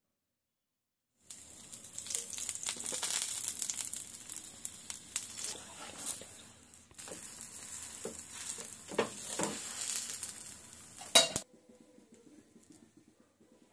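Oil sizzling and crackling under a stuffed aloo paratha frying on a hot tawa, with a steel spoon scraping and tapping on it as the oil is spread. The sizzle starts about a second in; a sharp clink comes near the end, and then the sizzle cuts off suddenly.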